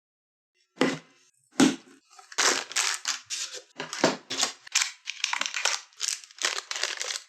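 Graphics card packaging being opened and handled: two knocks about a second in, then a quick run of scraping and rustling bursts, two to three a second, as the box and wrapping are worked open.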